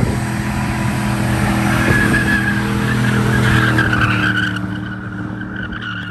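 Pickup truck doing a burnout: the engine held at steady high revs while the rear tyres spin and squeal. The squeal is strongest in the middle, and the sound eases off near the end as the truck pulls away.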